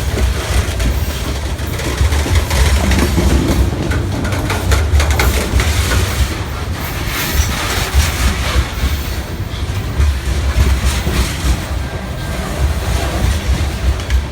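Freight train cars rolling past at close range: a heavy, steady rumble from the wheels on the rails, with scattered clacks over the rail joints.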